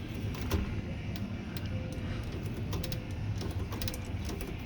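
Scattered light metallic clicks from a Royal HH typewriter's mechanism being worked by hand, with the carriage return arm moved to check whether its link still binds.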